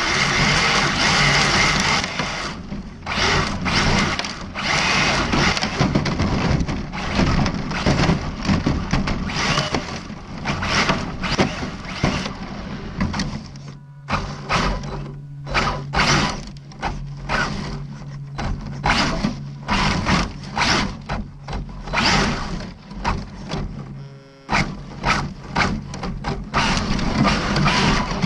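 ARRMA Felony 1/7-scale brushless electric RC car driving on gravel and dirt, its motor whirring in short, irregular surges with the throttle, mixed with gravel crunch and bumps.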